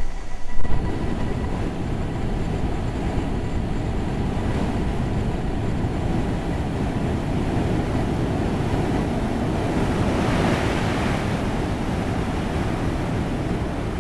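Whitewater at a waterfall rushing steadily over rocks, a constant loud hiss and rumble of falling water. A short thump about half a second in.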